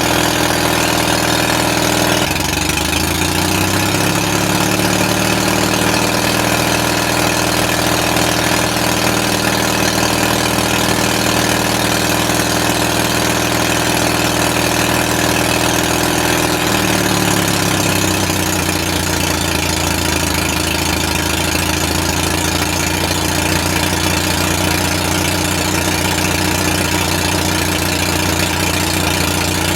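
Engine powering a Corley sawmill, running steadily. Its speed rises about two seconds in and falls back a little past halfway.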